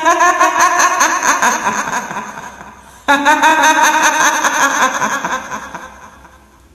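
A woman's voice doing the cackling laugh of a kuntilanak, the female ghost of Indonesian folklore. Two laughs, one at the start and one about three seconds in, each starting suddenly and fading away.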